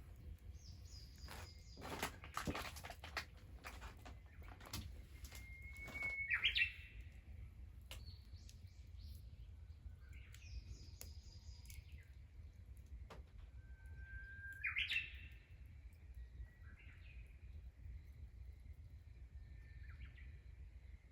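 Wild birds singing: one twice gives a long held whistle that breaks into a quick rising flourish, and a higher, stepped call sounds twice as well. Scattered sharp clicks come in between, thickest a couple of seconds in.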